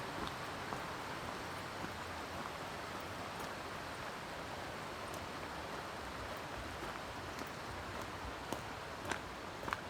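Steady rush of flowing water from a mountain stream, with a few sharp clicks in the last couple of seconds.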